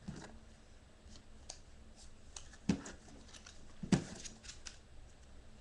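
Playing cards being picked up and handled on a plastic tray: soft scattered clicks and taps, with two louder knocks past the middle.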